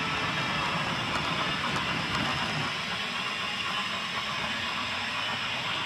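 HO scale model train rolling along the track, heard from a camera riding on the train: a steady rumble with a hiss over it.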